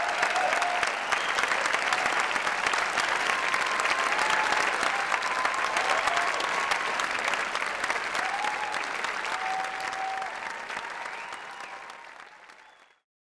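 Audience applauding, with a few held whoops over the clapping, fading out near the end.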